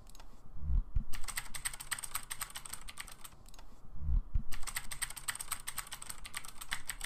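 Keyboard typing sound effect: two runs of rapid key clicks a couple of seconds long, with a short pause about halfway, each run starting just after two low thuds.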